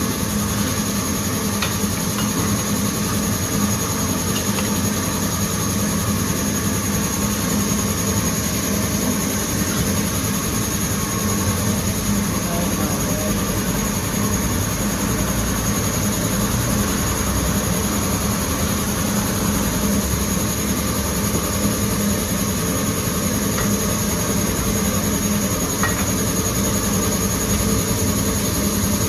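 Steady mechanical drone with a constant low hum and a thin high whine, unchanging throughout, with a couple of faint clicks.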